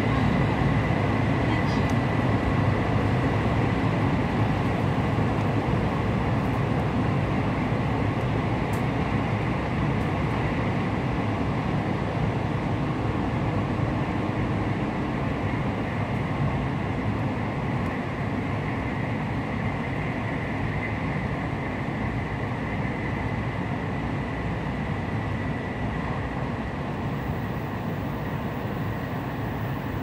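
Cabin noise of a Shinkansen running at speed: a steady rumble and rush with a faint high whine. It grows gradually quieter.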